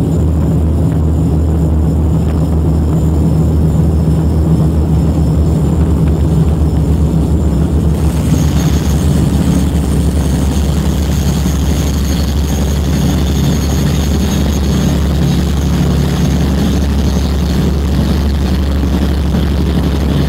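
Torpedo boat's three CRM 18DSS diesel engines running flat out, a loud steady drone, with rushing water and wind over the deck. About eight seconds in the sound changes, with more high hiss above the engine tones.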